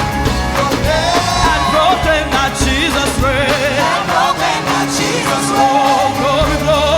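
Live contemporary praise music: singers holding wavering, ornamented lines over a full band with bass and drums.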